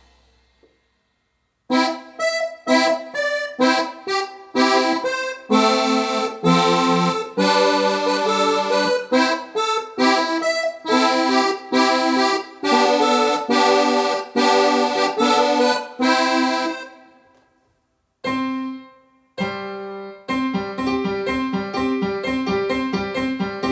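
Electronic keyboard played through a plugged-in loudspeaker box: after a brief silence, a run of separate chords and notes, a short pause with one held note, then a steady repeating figure near the end.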